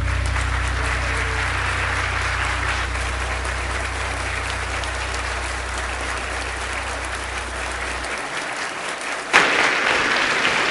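Church congregation applauding at the end of a song, with the accompaniment's last low note held under the clapping until it stops about eight seconds in. A single sharp knock sounds near the end.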